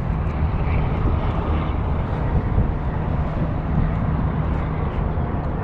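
Turbocharged 2013 Scion FR-S's flat-four engine idling steadily through a custom titanium center-exit exhaust, heard close to the tailpipe as an even, low drone.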